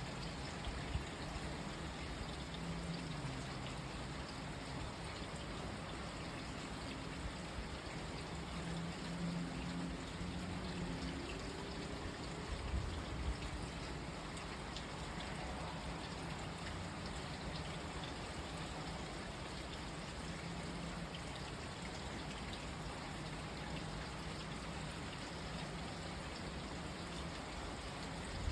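Steady rain falling, an even hiss with a faint low hum underneath.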